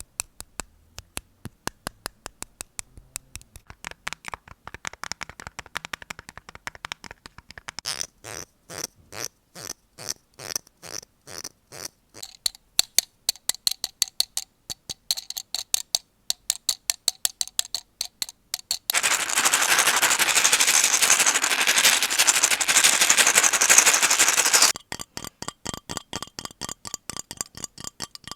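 Close-miked ASMR trigger sounds: a long run of sharp taps or clicks at about three to four a second. About two-thirds of the way through, six seconds of steady hissing noise break in, then stop abruptly, and the clicking resumes.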